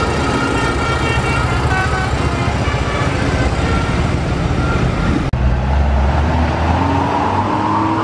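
Heavy diesel trucks, a cement mixer truck among them, running close by as they pass. The sound breaks off abruptly about five seconds in and gives way to road traffic, with an engine note slowly rising in pitch.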